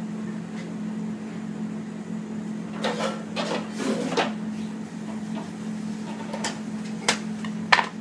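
Clicks and knocks of plating work, utensils against a plate or counter: a cluster about three seconds in, then a few single sharp clicks near the end. A steady low hum runs underneath.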